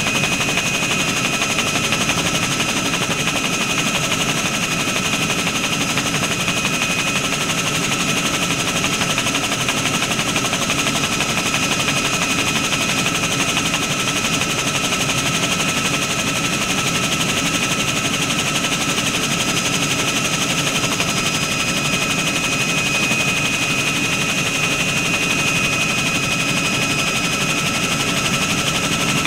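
Bell 47 helicopter's piston engine and rotor running steadily in cruise, heard from on board as a dense, rapid clatter with steady high whining tones over it.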